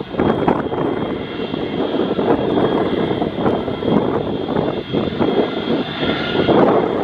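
Boeing 727-200 freighter's three Pratt & Whitney JT8D turbofans running at taxi power: a rough, wavering rush of jet noise with a steady high whine over it.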